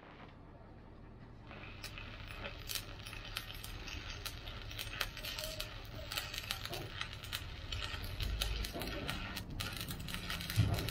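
Stick (shielded metal arc) welding on a truck's steel body: the arc crackles and spits irregularly over a steady low hum, the crackle growing denser about a second and a half in. The weld is being run over a crack in the metal.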